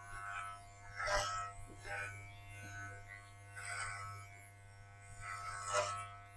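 Electric dog clippers running with a steady buzz, cutting through the dog's coat, with a few short louder passes.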